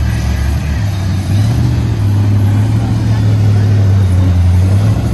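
Off-road challenge truck's engine pulling under load as it drives through a creek, its note stepping up about a second in and then holding steady, with water splashing around the wheels.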